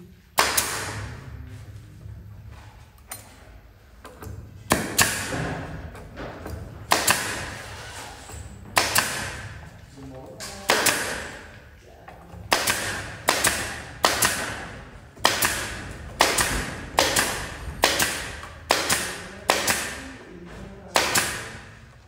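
Pneumatic nail gun firing into wooden roof slats, about fifteen sharp shots at an uneven pace, each trailing off over about a second.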